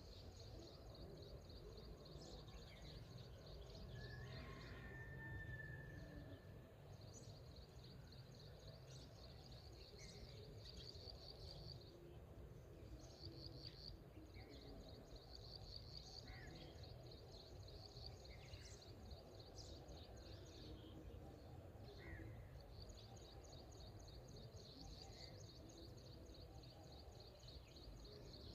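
Faint birdsong: scattered short chirps and calls, with a rapid high trill that comes and goes in runs of several seconds, over a low steady background rumble.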